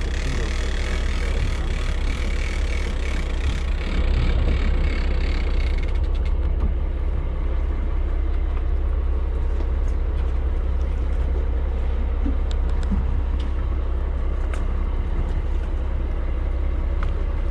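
Steady low rumble of a fishing boat's engine mixed with wind on the microphone, with a hiss over the first six seconds.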